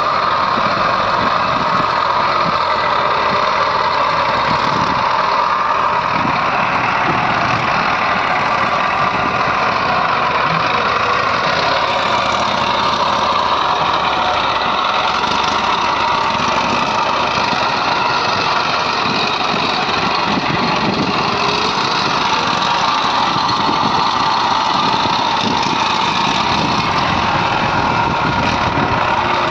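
Diesel engines of a JCB 3DX backhoe loader and tractors running steadily, with no break.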